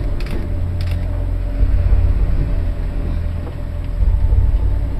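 Ship at sea in a storm: a heavy low rumble of wind and sea, with creaking and a few sharp knocks near the start.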